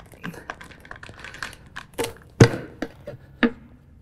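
Tire irons clicking, knocking and scraping against a lawn mower's metal wheel rim as the soaped tire bead is levered over the rim edge. A run of short sharp clicks, the heaviest knock about two and a half seconds in.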